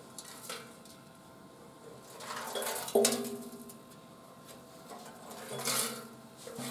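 Loose material rattling and sliding around inside an empty BMW R100S fuel tank as it is tilted and shaken, in a few separate bouts with a sharp knock about three seconds in. It doesn't sound good: something loose inside the tank.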